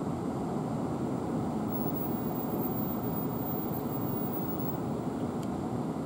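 Heavy downpour: rain pouring down in a steady rush, with water streaming off a building.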